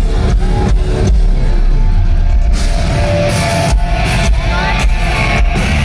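A live metalcore band playing loud, with electric guitars over a fast drum kit.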